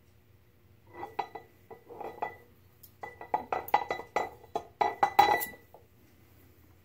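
Steel feeler gauge blades clinking against the aluminium rotors and case of a 6-71 Detroit Diesel blower while the rotor-to-case clearance is checked. A run of light metallic clicks with a faint ringing tone, a short burst about a second in, then a denser run from about three seconds until nearly six.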